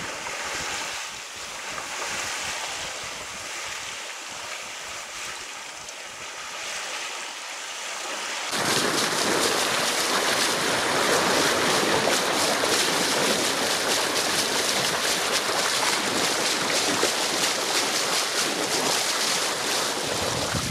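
Water rushing and splashing along the hull of a sailing yacht under sail, with wind buffeting the microphone. The rush becomes suddenly louder and fuller about eight seconds in.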